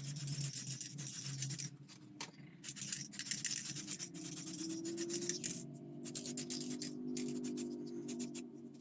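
Aerosol spray-paint can hissing in short, repeated bursts, with a low steady hum underneath.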